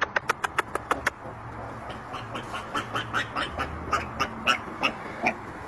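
Duck quacking: a fast run of short quacks in the first second, then slower ones, about two or three a second.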